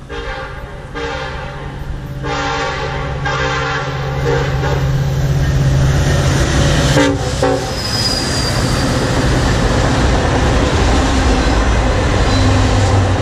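Norfolk Southern freight train's diesel locomotive horn sounding several blasts on approach, followed by the rumble of the locomotives and the clatter of autorack cars passing close by.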